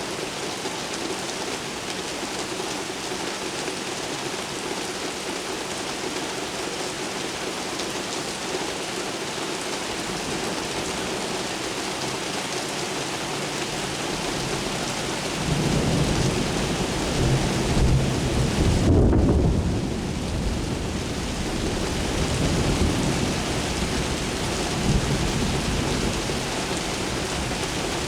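Steady heavy rain falling, with a long low thunder rumble rolling in about halfway through, swelling for a few seconds and fading away near the end.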